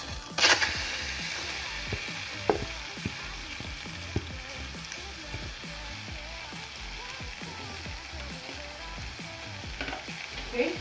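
Beef going into a hot pan about half a second in with a sudden loud sizzle, then frying with a steady sizzle and a few light knocks.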